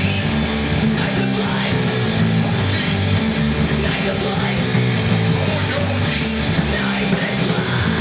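Live rock band playing electric guitars and drums.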